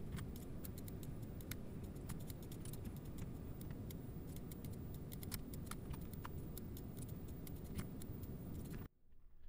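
Faint, rapid, irregular computer mouse clicks and keystrokes over low room noise, fast-forwarded. It drops to near silence just before the end.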